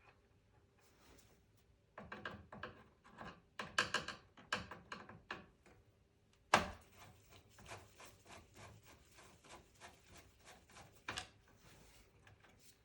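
Hand tools and small screws clicking and scraping against a desktop computer's metal chassis as the motherboard screws are backed out and set down. There is a run of small clicks, one sharp knock about six and a half seconds in, and another knock a couple of seconds before the end.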